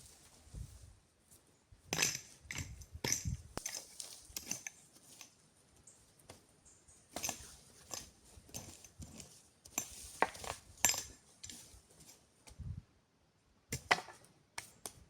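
Irregular knocks, clicks and clinks of camping gear being handled by hand, in small clusters with short quiet gaps between.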